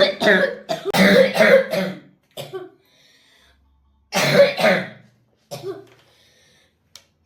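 A 12-year-old boy's harsh coughing attack, from the chronic cough that doctors have not diagnosed. A rapid run of coughs fills the first two seconds, a single cough follows, then another heavy burst of coughing comes just after four seconds in. The attack leaves him unable to catch his breath.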